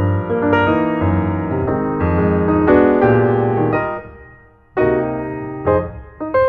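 Background piano music: struck keyboard notes and chords. It dies away briefly about two-thirds of the way through, then starts again.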